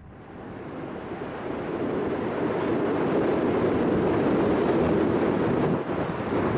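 Boeing 747-400's four jet engines at takeoff thrust, heard from beside the runway as a steady, deep noise that fades in over the first two seconds.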